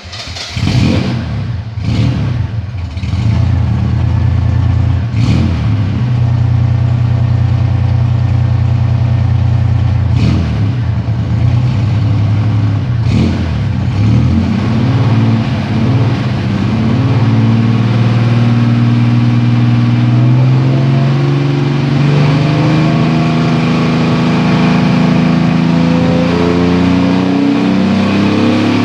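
Car engine running rough with several sharp coughs in the first half, then its speed slowly creeps up. The engine is coughing water, a sign of coolant leaking through the cylinder heads.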